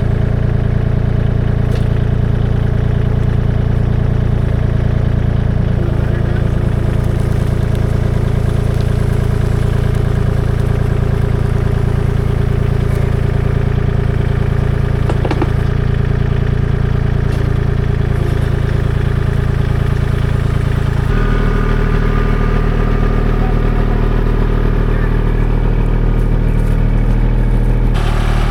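Kubota L2501 compact tractor's three-cylinder diesel engine running steadily just after starting. Its note drops lower about three-quarters of the way through.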